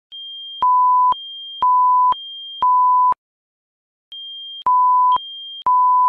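Fire alarm voice-evacuation system's alert tone: a high tone and a lower tone alternating every half second, three high-low pairs, then a pause of about a second before the pattern repeats. The lower tone is much louder than the high one.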